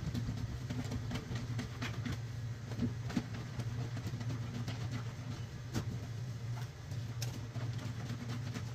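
Soapy wet laundry scrubbed by hand against the metal ribs of a wood-framed washboard: a steady low rubbing rumble with scattered sharp clicks.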